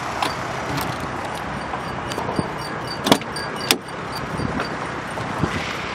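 Daewoo Nexia driver's door being opened by hand after unlocking: a few light clicks of the handle and lock, then two sharp clicks of the latch about three seconds in.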